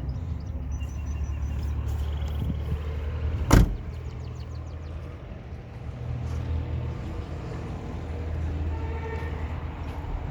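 Car engine idling with a steady low hum, and one sharp loud thump about three and a half seconds in.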